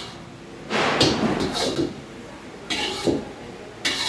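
Kitchen handling sounds: a few separate knocks and scrapes of cookware and utensils, the first about a second in and others near three and four seconds in.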